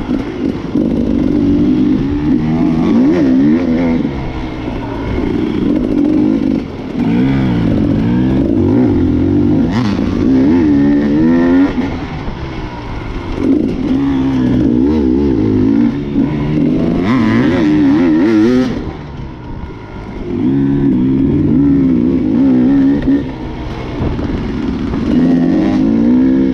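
Dirt bike engine heard from on the bike, revving up and down over and over as the rider works the throttle and shifts along a trail, easing off briefly every few seconds.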